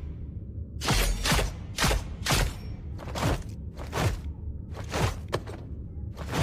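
Throwing-star sound effect: a run of quick swishes, about nine in all, coming roughly every half second and sometimes in close pairs, over a steady low rumble.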